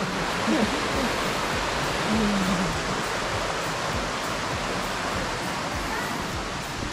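Steady rush of water from a rocky stream and the nearby falls, with brief snatches of voices about half a second and two seconds in.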